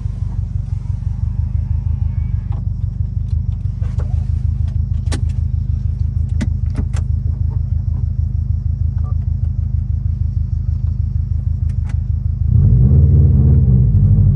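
2021 Subaru WRX STI's turbocharged 2.5-litre boxer four running through a Tomei aftermarket exhaust: a steady low rumble, with a few sharp clicks. About twelve and a half seconds in, the engine gets louder and its pitch begins to rise and fall.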